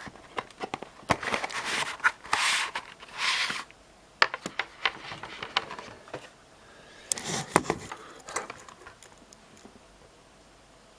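Packaging being opened and handled while unboxing a solid-state drive: scattered clicks and scrapes with a few short rustling swishes, dying away about eight seconds in.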